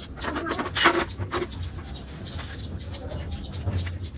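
Clicks, taps and rubbing of small parts being handled and fitted while assembling a model tower crane. The sharpest click comes about a second in, with a few lighter ones after it.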